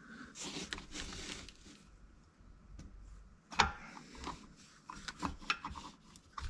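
Faint, irregular small clicks and rustling from hand-tool work on the oil filter cover of a Can-Am V-twin engine as its last bolt is taken out and the cover is pulled off. The sharpest click comes a little past halfway, followed by a cluster of light clicks.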